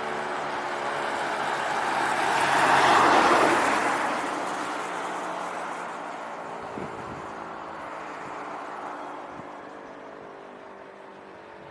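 A car passes close by, its noise swelling to a peak about three seconds in and then fading. Under it the E57 motor siren's tone goes on, sinking slowly in pitch.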